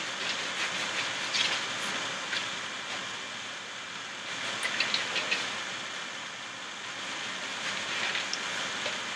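Pastry brush spreading melted butter over a dry sheet of warqa (brick) pastry: a steady soft rustling swish with a few light ticks and crinkles.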